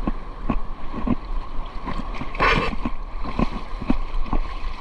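Water slapping and knocking against a small boat's hull in short, irregular hits, with a larger splash about two and a half seconds in, over a steady hum.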